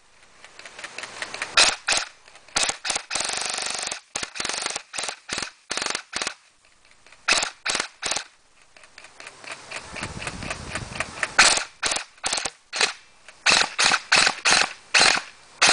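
Airsoft M4 electric gun with an M140 spring and magnum motor on a 12-volt battery firing a long string of sharp shots, mostly singles and short bursts at two to three a second, with a couple of brief stretches of steadier whirring noise. The gun sounds a little bit weird: by the owner's account its piston head is failing.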